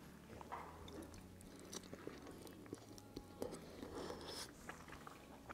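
Faint sounds of two people eating spaghetti: soft chewing, with scattered light clicks of forks against ceramic plates.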